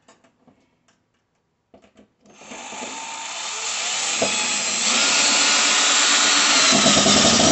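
Cordless drill-driver running a mounting bolt into the back of a TV to fasten a wall-mount bracket. A few small clicks come first, then the drill starts about two seconds in and runs for about five seconds, getting steadily louder, before stopping at the end.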